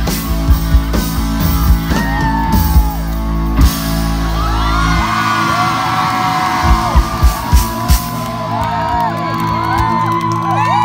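Live rock band over a concert PA, with electric guitar, bass and drums, and fans screaming and whooping over it. About five seconds in the heavy bass drops out, leaving a run of single drum hits under the screaming.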